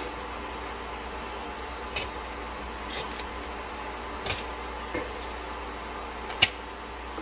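Kitchen tongs clicking and knocking against an air fryer basket as cooked spring rolls are picked out one by one: about five short, light clicks, the sharpest near the end, over a steady background hum.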